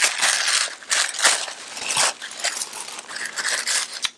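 White tissue paper crinkling and rustling as it is unfolded by hand, with irregular crisp crackles throughout.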